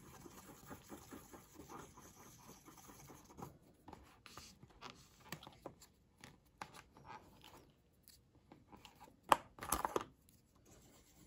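Wooden craft stick scraping and stirring two-part JB Weld epoxy on paper, quick short strokes at first, then sparser scrapes. A sharp tap and a brief clatter of wooden sticks being handled come near the end.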